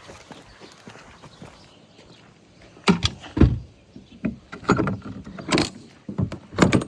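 Quiet handling at first, then from about three seconds in a run of irregular sharp knocks and clatters as pressure washer parts are carried and set down.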